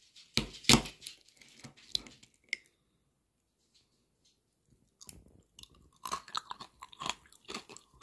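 A metal teaspoon cracking the hard caramelised sugar top of a crème brûlée in a ceramic ramekin. There are a few sharp cracks in the first two and a half seconds, the loudest one near the start. After a pause comes a run of small crunches in the last three seconds.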